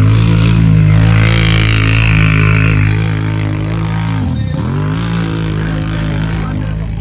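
ATV engine held at high, steady revs as it churns through a mud pit, with mud and water splashing. About four and a half seconds in, the revs drop briefly and climb straight back up.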